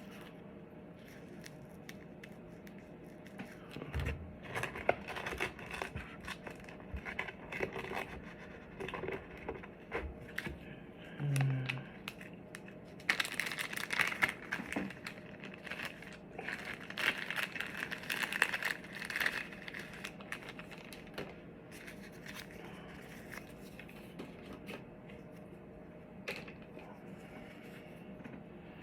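Hands working with the adhesive Velcro pads for helmet speakers and their wrapping: scattered crinkling, tearing and small clicks, busiest in the middle.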